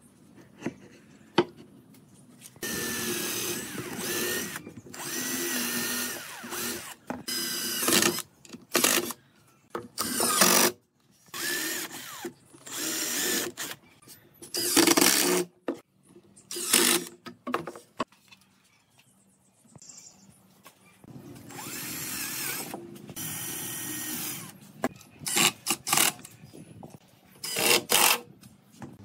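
Cordless drill running in repeated bursts of a second or two as it drives screws into wooden table parts, its motor whine rising and falling with each screw, with a quieter pause a little past the middle.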